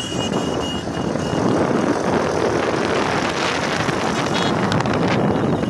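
Wind buffeting the microphone over the running of a motorcycle engine, filmed while moving at speed. A string of short, evenly spaced high beeps fades out over the first second and a half.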